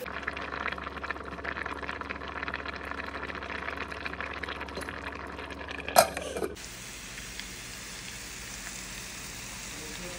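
Dough fritters frying in hot oil, a dense crackling sizzle. About six seconds in, a glass pot lid clinks sharply with a short falling ring, and the sound then changes to a quieter, steady hiss.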